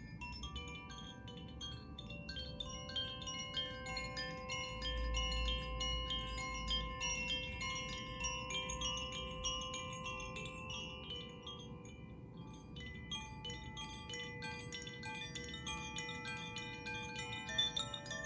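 Handheld Koshi-style tuned chimes played by gently swaying them. The clapper sets off a continuous, dense stream of tinkling strikes, and many clear, lingering tones overlap as they ring on.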